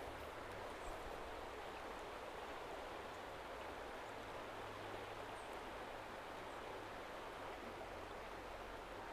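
Mountain stream flowing over rocks, a steady even rush of water.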